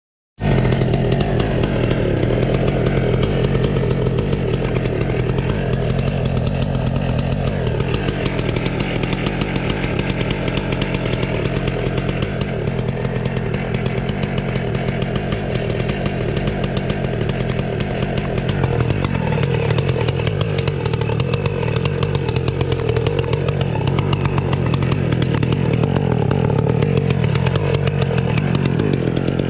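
A two-stroke chainsaw engine runs steadily, its exhaust piped into a rat burrow to smoke the rats out. The engine pitch sags and recovers a few times.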